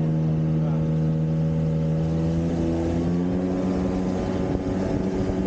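Jet ski engine running under way with a steady pitched hum that rises a little about halfway through as it speeds up. A rushing noise of water and wind grows near the end.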